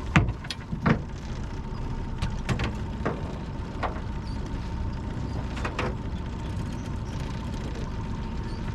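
Boat motor running steadily at trolling speed, a low rumble with a thin steady whine, broken by several sharp knocks and clicks, the loudest just after the start.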